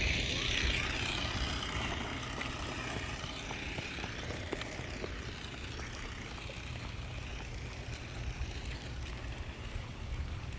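Rain falling outdoors, a steady hiss with a low rumble of wind on the microphone and a few faint ticks of drops; a brighter hiss near the start fades over the first two seconds.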